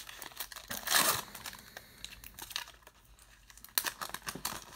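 Foil wrapper of a Bowman's Best baseball card pack being torn open and crinkled by hand, loudest about a second in.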